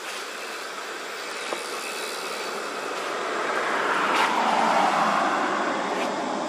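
A rushing noise of a vehicle passing by, swelling to a peak a little past the middle and then fading away.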